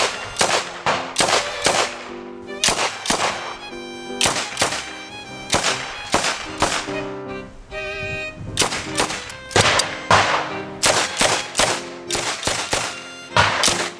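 PM-63 RAK submachine gun firing 9mm Makarov in repeated short bursts of a few shots each, with gaps between bursts, over background music.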